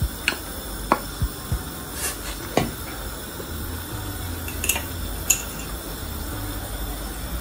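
Spoons knocking and scraping against a stainless steel stockpot as ginger-garlic paste is tapped off into the soup, then a wooden spoon stirring it: scattered sharp clicks and knocks, most in the first three seconds and two more past halfway, over a steady low hum.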